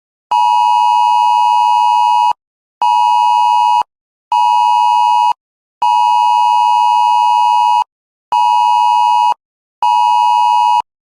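Emergency alert attention tone: a loud, steady electronic tone with two close pitches near 1 kHz, sounded as six beeps in a long-short-short pattern played twice.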